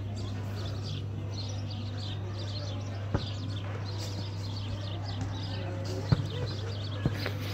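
Small birds chirping throughout over a steady low hum, with three sharp knocks of a basketball striking, about three, six and seven seconds in.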